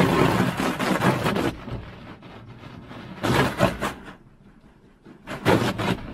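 Jet of water from a garden hose nozzle splattering and drumming against a car windshield, heard from inside. It is heavy at first, eases to quiet around four to five seconds in, then comes back in sharp splashes.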